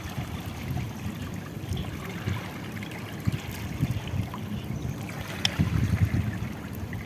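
Shallow seawater trickling and lapping at the shore, under an unsteady low rumble of wind on the microphone. A single sharp click about five and a half seconds in.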